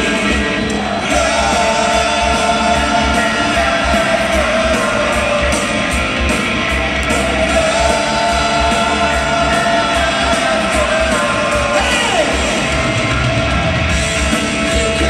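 Live amplified band with a singer, the voice holding long notes over a steady driving beat, echoing through a large arena as heard from high up in the stands.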